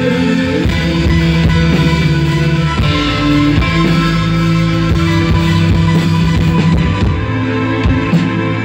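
Live rock band playing an instrumental passage between sung lines, with guitar and sustained chords over a steady drum beat.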